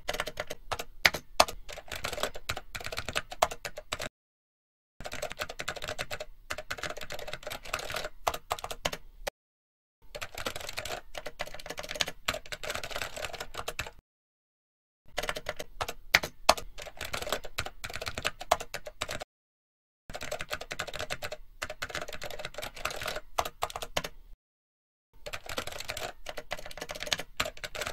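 Typing sound effect: rapid, uneven clicks of keys in bursts of about four seconds, each broken off by about a second of dead silence.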